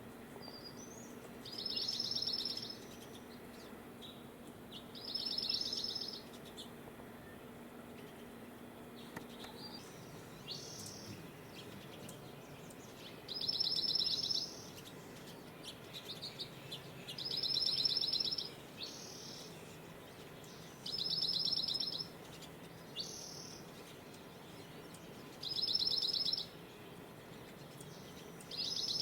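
Dark-eyed junco singing its courtship song: a rapid, even, musical trill of about a second, repeated about seven times at intervals of a few seconds, with a few short chirps in between.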